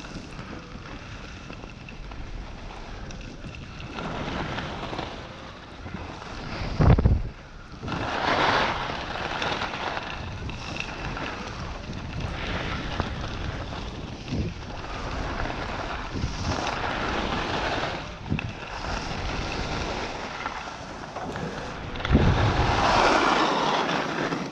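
Wind buffeting the microphone while skiing downhill, with the hiss of skis sliding over snow, rising and falling in waves. Heavy gusts hit the microphone about seven seconds in and again near the end.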